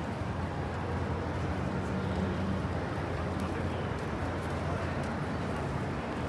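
City street ambience: a steady hum of traffic and urban noise with no single event standing out.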